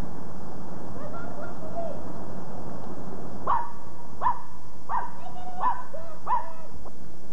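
A dog barking five times in an even series, about one bark every 0.7 seconds, over steady camcorder tape hiss.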